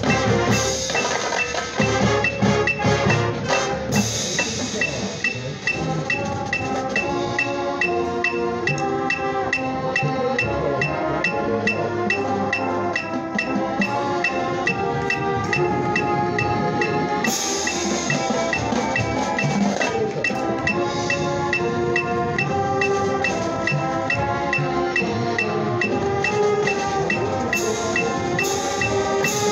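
Marching band playing a full piece: winds over front-ensemble mallet percussion (marimbas and vibraphones) and drums, with an evenly spaced high tick keeping time.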